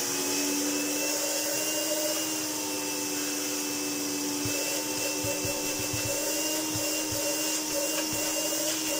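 Hoover Enigma Evo PU31 bagged upright vacuum cleaner running steadily: a constant motor hum with a faint high whine and a rush of air, with a few soft knocks near the middle. It has hardly any suction or airflow.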